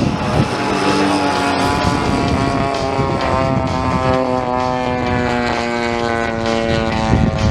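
Engine and propeller of a radio-controlled model Spitfire in flight, running steadily. Its pitch falls slowly as the model passes.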